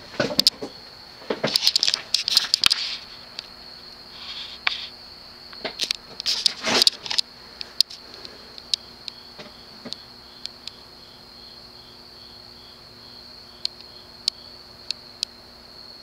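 Broan P4200 (CEC-built) 42-inch ceiling fan with a cast-iron spinner motor running on its variable low speed, with only a faint steady hum. A steady high-pitched whine sits under it. Sharp clicks and knocks come in the first few seconds and again around six to seven seconds in, with a few lighter ticks near the end.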